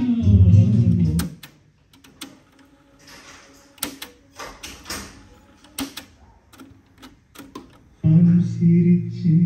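Music with singing and bass playing from a Kenwood KX-59CW cassette deck stops about a second in. Then comes a string of sharp mechanical clicks from the deck's buttons and tape transport, and the music starts again near the end.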